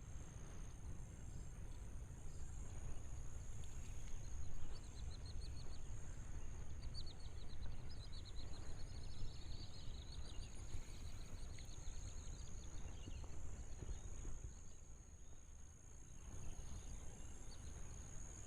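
Outdoor field ambience: a steady high-pitched insect drone over a low rumble, with a run of rapid short chirps from about three to ten seconds in.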